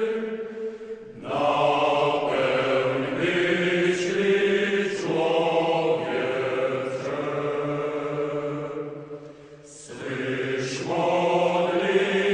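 Music interlude of slow, chant-like singing in long held notes, with short breaks between phrases about a second in and again near nine seconds.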